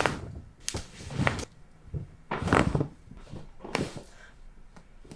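A chiropractic adjustment: a sharp crack right at the start, then several short thuds and rustles, the loudest about two and a half seconds in.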